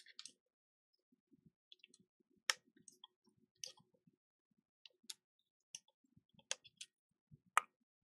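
Faint, scattered small clicks and taps, about six spread over several seconds, from small phone parts being handled at a repair bench.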